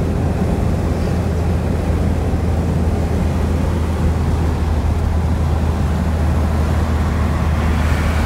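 Steady low rumble and rushing noise of a vehicle in motion, heard from inside the cabin.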